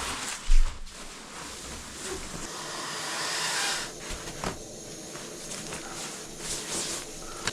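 Rustling, hissy handling of sleeping gear as a sleeping pad and bag are laid out, swelling for a couple of seconds in the middle. There is a loud low thump about half a second in and a few light knocks later.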